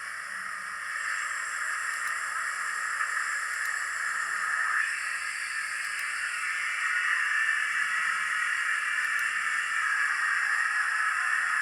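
Steady hiss of steam sound from a model steam locomotive's sound decoder, played through its small onboard speaker, growing louder about a second in and again around the middle.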